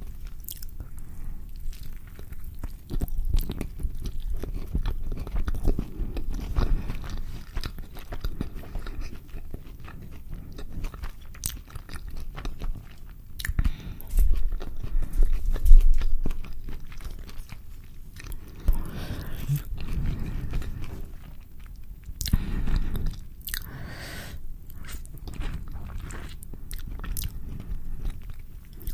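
A person biting into and chewing a carne asada burrito close to the microphones: moist chewing with scattered sharp mouth clicks, loudest about halfway through.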